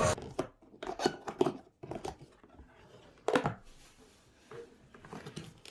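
Scattered light clicks and knocks at an irregular pace, about a dozen over a few seconds, the loudest about three seconds in.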